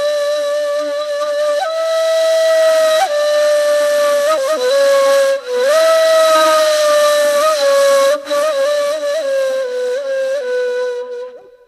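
Background music: a slow solo melody on a breathy, flute-like wind instrument, long held notes with small ornamental turns, fading out near the end.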